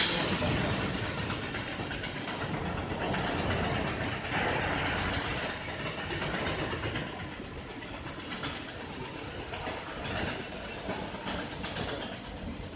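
Steady machinery noise with a fast, faint rattling texture.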